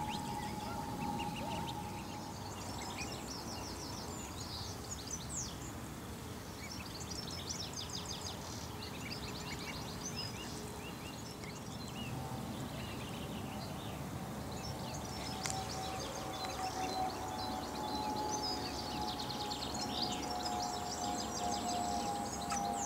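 Mallard ducklings peeping, a chorus of many short high peeps in clusters. From about halfway in, a steady held tone sounds underneath.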